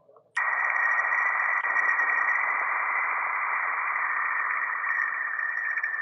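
Planet 'sound' of the kind made by turning spacecraft radio recordings into audio: a steady electronic hiss with a high steady tone running through it. It cuts in sharply about a third of a second in.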